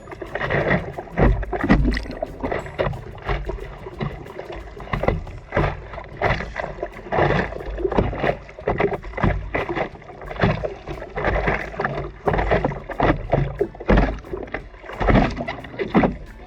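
Seawater splashing and sloshing in irregular bursts, with a low rumble, in surf whipped up by a typhoon swell.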